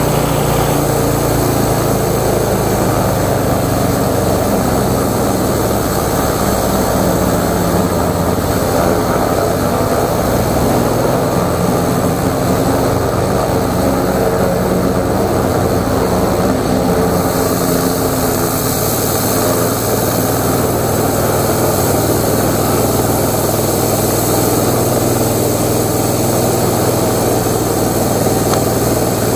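A 13-horsepower gasoline-engine high-pressure washer running steadily under load, with the hiss of its double-barrel water jet blasting into a sheet of plywood.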